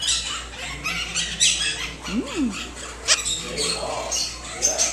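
Blue-crowned conure nibbling at a cracker: a run of small crunches and clicks, with one short rising-and-falling squeak about two seconds in.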